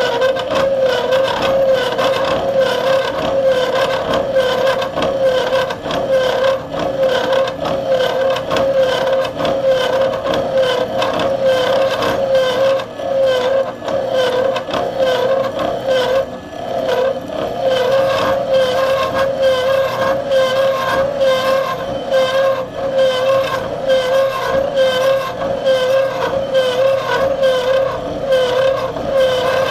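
Milling machine's 3/16-inch milling cutter cutting a tooth slot into hard 4140 steel at a slow feed. It makes a steady singing tone that wavers slightly and eases briefly about halfway through.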